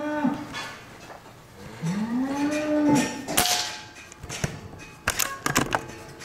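Dairy cows mooing: one moo ends just at the start, and another rising moo comes about two seconds in and lasts about a second. A sharp knock follows about half a second after it, then a quick cluster of clicks and knocks near the end.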